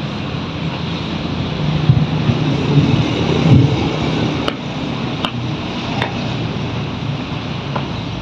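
Steady outdoor noise of road traffic and wind on the microphone, with a louder low rumble about two to four seconds in. A few sharp taps sound near the end.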